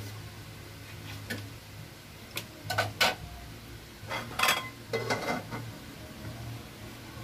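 A few sharp clinks and knocks of kitchenware being handled as graham crackers are dipped in cream on a plate and laid into a plastic tub. The loudest come about three and four and a half seconds in, over a low steady hum.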